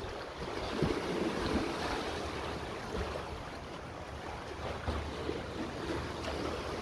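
Wind gusting against the microphone over the wash of small sea waves lapping below an overwater deck.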